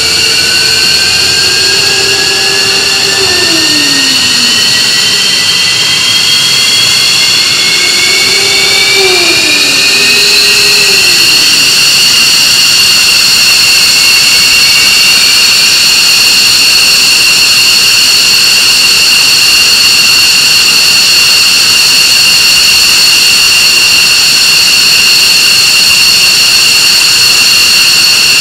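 F-15C Eagle's F100 turbofan spooling up during engine start: a loud whine rises in pitch over the first ten seconds or so, then settles into a steady high whine at idle.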